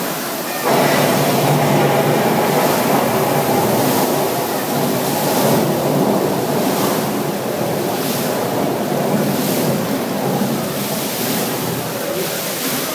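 Fountain water jets spraying and splashing back into their basin: a steady rushing of water that gets suddenly louder under a second in and slowly eases.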